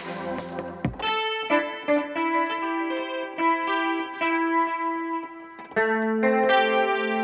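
An electronic beat with drums and bass cuts off about a second in. A piano-like software instrument, played from a MIDI keyboard, then picks out a slow melody of held notes, and lower notes join as chords about six seconds in.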